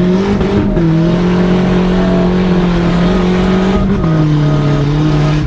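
Turbocharged Nissan Hardbody pickup's engine running under way, heard from inside the cab. Its note holds steady and drops briefly about half a second in and again near four seconds.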